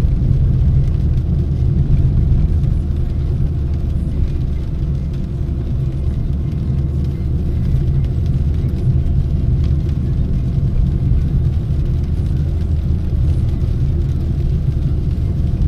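Car heard from inside the cabin while driving on a wet road: engine and tyre noise as a steady low hum.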